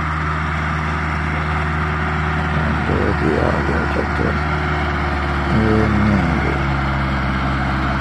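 Massey Ferguson 385 tractor's diesel engine running steadily at full throttle, straining to pull a loaded sand trolley up a steep ramp.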